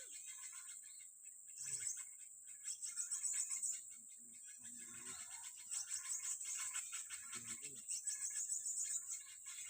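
A high, rapidly pulsing insect trill, like crickets or cicadas, runs throughout, with scattered bird chirps beneath it.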